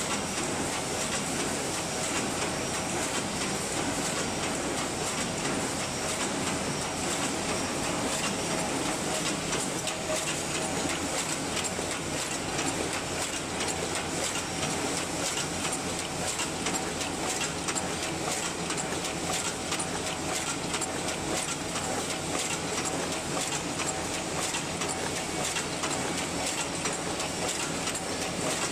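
DS-A12 paper cup forming machine running: a steady, fast mechanical clatter that keeps on without a break.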